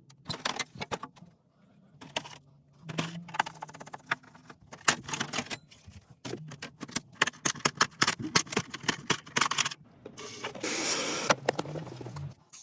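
Rapid metallic clicking and clattering of small parts being handled, over a steady low hum, with a burst of hiss lasting about a second and a half near the end.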